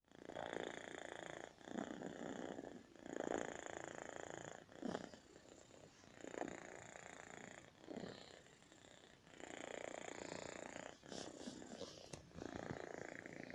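Cat snoring in its sleep: a string of rough, raspy breaths, mostly about a second each, with a few short snorting catches in between.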